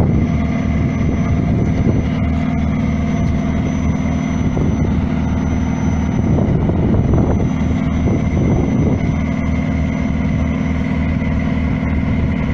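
Heavy diesel engine running steadily, an even drone with a faint high whine above it.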